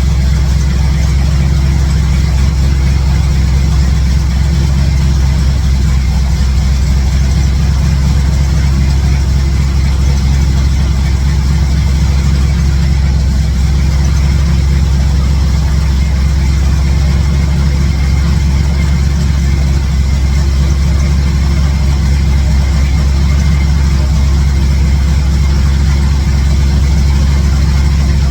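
1967 Chevrolet C10 pickup's V8 idling steadily. It is running on all eight cylinders, and no major exhaust leak can be heard.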